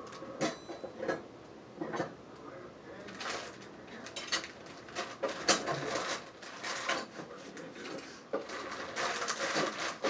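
Kitchenware being handled: irregular clinks and knocks of dishes, pots and utensils, several a second at times.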